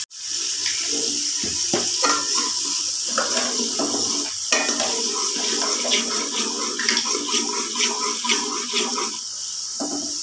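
Sliced onions sizzling and crackling in hot oil and ghee in an aluminium pot, with a ladle stirring and clinking against the pot.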